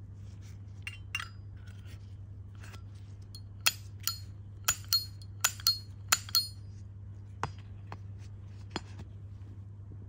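Solid brass Zippo lighter being handled: a series of sharp metallic clicks and clinks with a brief ring, as its hinged lid snaps and its insert is fitted into the brass case. The loudest clicks come in quick pairs through the middle, with a few softer ones before and after. A steady low hum runs underneath.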